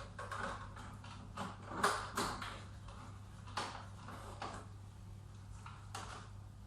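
Irregular clicks and knocks of parts being handled and fitted, clustered in the first half and thinning out later, over a steady low hum.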